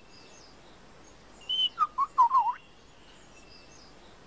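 Superb lyrebird calling: a brief run of whistled notes about a second and a half in, one short high note followed by four or five lower notes that bend up and down.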